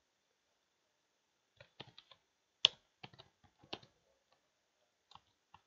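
Computer keyboard being typed on: short runs of key clicks, starting about a second and a half in, with a few more taps near the end.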